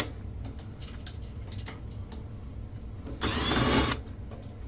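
Cordless power screwdriver running in one short burst about three seconds in, its motor pitch gliding as it backs a screw out of a computer case, with a few light clicks of metal parts being handled.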